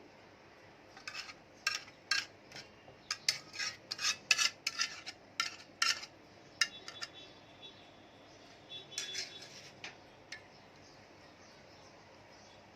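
A spoon scraping and knocking against cookware as thick béchamel sauce is scooped and spread over a tray. There is a quick run of scrapes and knocks for several seconds, a faint ringing after them, and a few more scrapes about nine seconds in.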